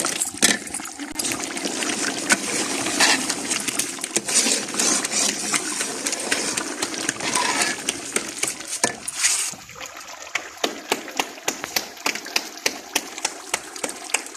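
Metal spoon stirring thick chicken korma in a large metal pot, scraping and clinking against the pot with the gravy squelching. After about nine and a half seconds the stirring stops, and quieter sharp pops continue at short intervals.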